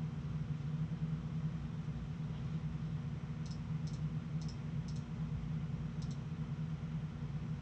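A handful of sharp clicks from working a computer, several in quick pairs, in the middle of the stretch, over a steady low hum.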